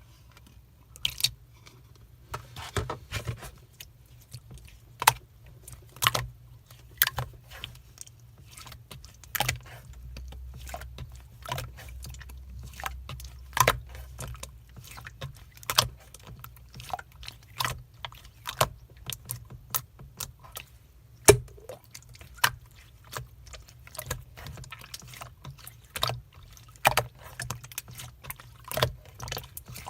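Slime being squeezed and pressed by hand, making irregular sharp clicks and wet pops, two or three a second.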